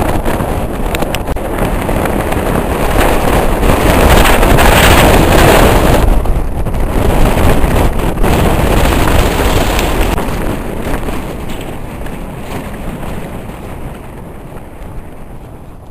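Wind buffeting the microphone: a loud, rushing rumble that swells to its loudest in the middle and fades toward the end.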